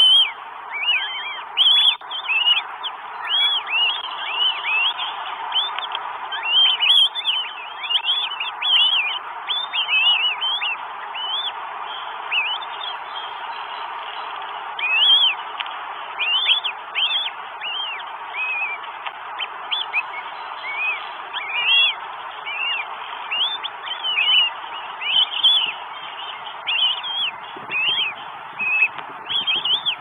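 Northern goshawk nestlings giving high, thin begging calls as the female feeds them at the nest: many short peeps in quick succession, over a steady hiss.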